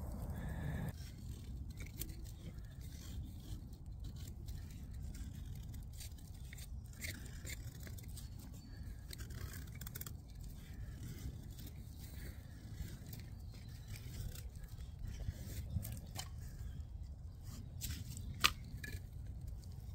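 Mora knife blade shaving thin curls down a wooden stick to make a feather stick: a run of short, quick scraping strokes, with one sharp tap near the end.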